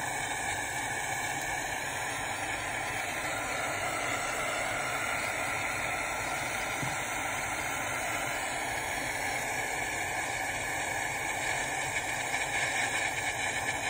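Handheld torch flame hissing steadily while it heats a solder-loaded wire terminal so the solder melts into the connector.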